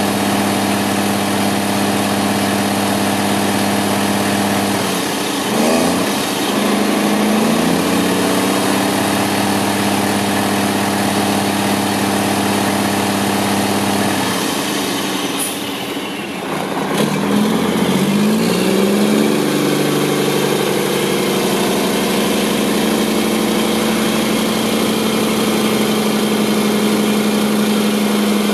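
Mack CV713 dump truck's diesel engine idling, then rising in speed about five seconds in and holding there. After a short dip and a click past the middle, it speeds up again and runs steadily at raised speed while the dump body is hoisted.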